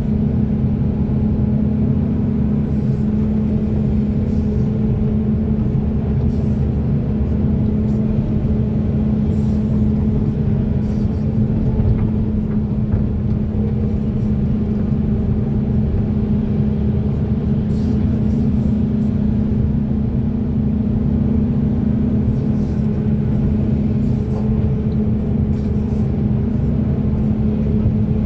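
Large diesel engine of a heavy hydraulic excavator running steadily, a constant loud drone with a strong low hum that holds the same pitch throughout.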